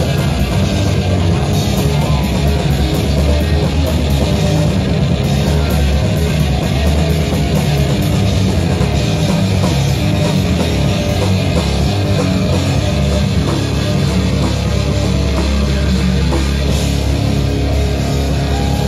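A metal band playing live and loud on drum kit and electric guitar, without a break.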